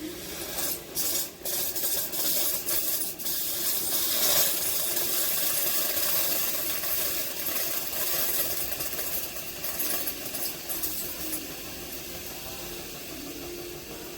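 Amazon Basics single-serve K-Cup coffee maker brewing: a steady hiss with a low hum, with several sharp spits and clicks in the first few seconds.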